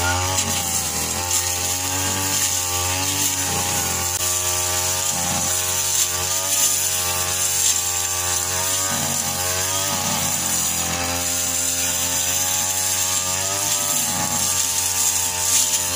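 Backpack brush cutter's small petrol engine running at high revs, its pitch wavering up and down as the cutting head bites into and clears tall grass.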